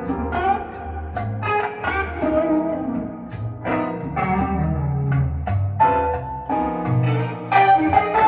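Instrumental passage of a recorded song played back through a single-ended EL84 tube amplifier: guitar and piano over a bass line, with no vocals.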